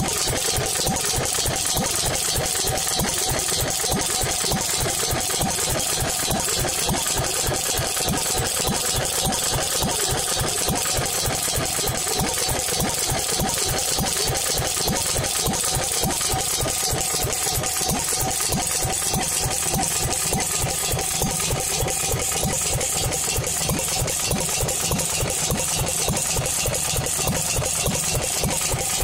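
Horizontal Pilter stationary engine running steadily, with an even, rapid beat.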